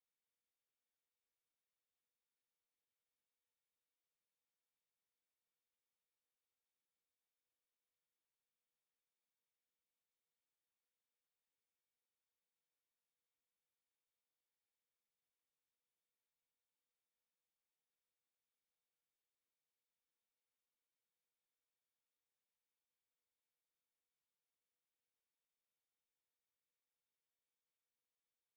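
Steady 7777 Hz sine test tone, a single high-pitched pure tone held at a constant loud level, used to test speaker and headphone treble response.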